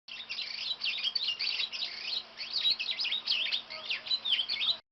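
A bird calling in a rapid, busy run of high chirps and twittering notes, one quickly following another.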